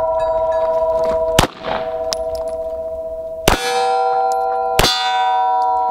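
Three pistol shots from a SIG Sauer P226, about a second and a half in, three and a half seconds in and near the end. Steel targets ring on at several pitches between the shots.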